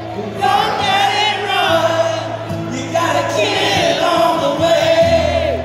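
Live solo performance: a man sings long held notes with vibrato over strummed, amplified acoustic guitar chords that change a few times.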